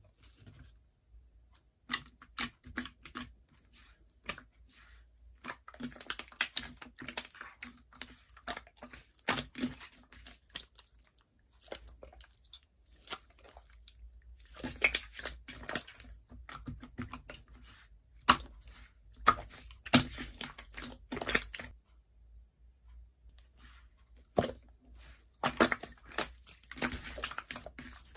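Slime being squeezed, stretched and pressed by hand, giving runs of sharp crackles and pops with short pauses between.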